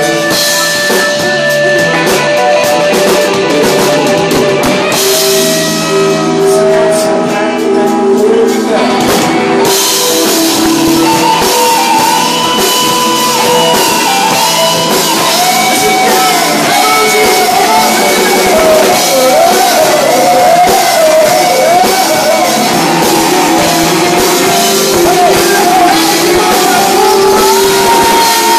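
Live rock band playing loudly: electric guitars and drum kit with a singer's vocals.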